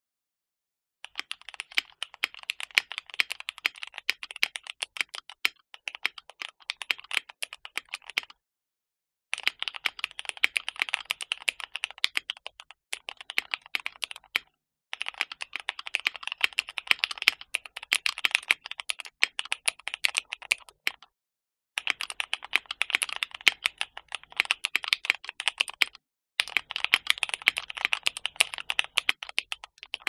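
Fast typing on a Keychron Q1 aluminium 75% mechanical keyboard with Gateron Phantom Red linear switches, after foam and tape mods meant to cure its hollow, pingy sound. The keystrokes come in several runs of rapid clacks broken by short silent gaps.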